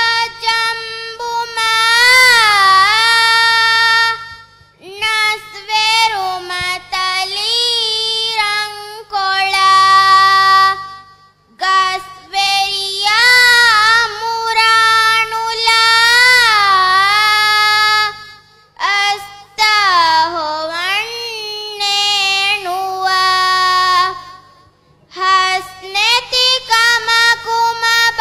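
A young girl chanting raivaru, traditional Dhivehi verse, solo into a microphone with no accompaniment. She sings long held notes with slow, ornamented pitch slides, in phrases broken by short breath pauses.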